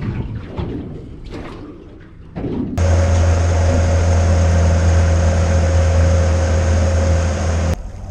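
A boat's engine running steadily with a low hum, cutting in abruptly about three seconds in and cut off just before the end. Before it comes quieter, irregular noise.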